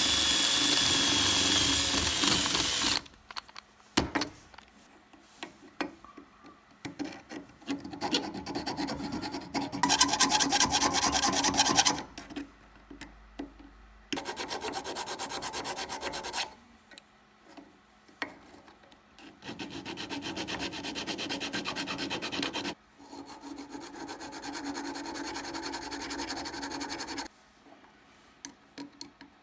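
A tool rubbing and abrading against silver, in several separate stretches of two to three seconds that start and stop abruptly, with scattered light clicks and taps between them.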